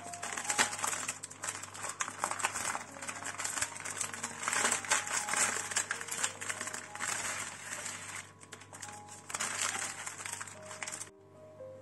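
Crinkling and rustling of a foil-lined paper food package being opened by hand, with a plastic tray slid out of it, over soft background piano music. The crinkling stops abruptly near the end.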